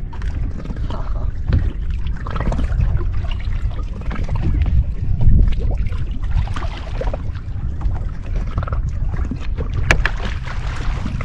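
Wind buffeting the microphone and water slapping the hull of a bass boat, with a rough, gusty rumble. About ten seconds in, a hooked bass thrashes and splashes at the surface beside the boat.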